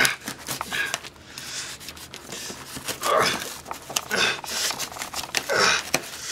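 Small knife cutting and sawing at packing tape on a cardboard box: rough scraping and tearing in several uneven strokes, with the strongest about halfway through and near the end.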